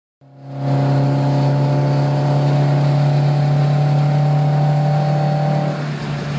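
Steady drone of an aircraft engine, with a strong low hum and several steady overtones over a hiss, cutting in abruptly at the start.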